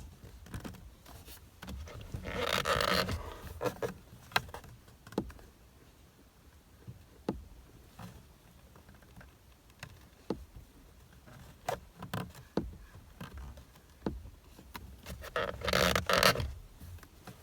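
Flathead screwdriver clicking and scraping inside a VW MK4 steering wheel as it probes for the airbag's retaining spring clip. Scattered light clicks, with two longer, louder scrapes about two and a half seconds in and near the end.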